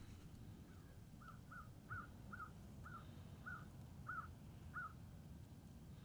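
A faint series of about nine short, bird-like calls, each note rising and falling in pitch, repeated roughly twice a second and stopping about a second before the end.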